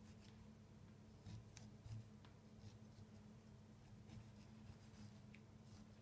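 Faint scrapes and small clicks of a knife cutting the middle out of an orange, a few strokes bunched in the first half and one more near the end, over a low steady hum.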